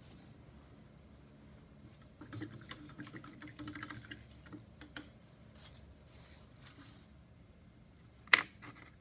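Small clicks and taps of paintbrushes being handled and swapped, with one sharp clack near the end as a brush is put down on the tabletop.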